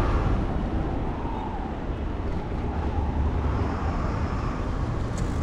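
Steady low wind rumble on an action camera's microphone while a bicycle is being ridden, with no distinct events.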